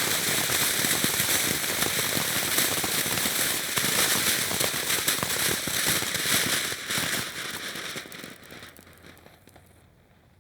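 Fireworks fountain sizzling with dense rapid crackling pops, then dying down and fading out over the last few seconds as it burns out.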